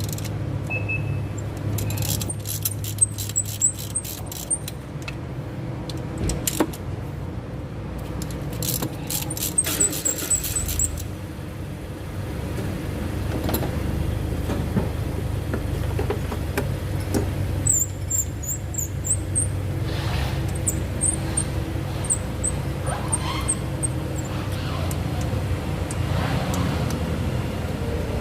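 Hand tools working on a diesel engine during glow plug removal: two quick runs of sharp metallic clicks, then scattered clinks, over a steady low hum.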